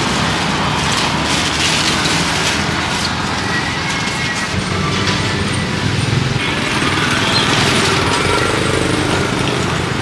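Steady traffic noise from a busy road, cars and motorbikes running by, with plastic bag crinkling in the first few seconds.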